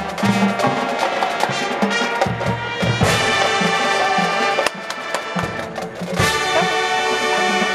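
High school marching band playing: brass chords over drums and percussion. The music drops to a quieter passage a little before the five-second mark, then the brass swells back in about a second and a half later.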